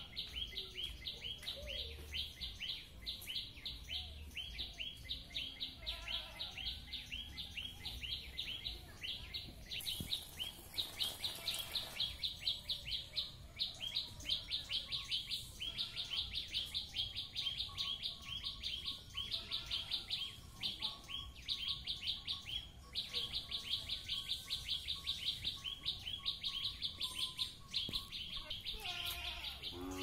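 A wild songbird sings in the trees as a fast, unbroken chattering trill of short, rapidly repeated high notes. This is the rapid burst song ('tembakan') used to train caged magpie-robins and white-rumped shamas.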